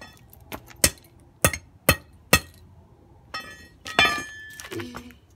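A metal bar striking the broken pieces of a plastic tail light and its circuit board on a hard surface: five sharp blows in about two seconds, then a clatter and a louder metallic clink with a short ringing tone about four seconds in.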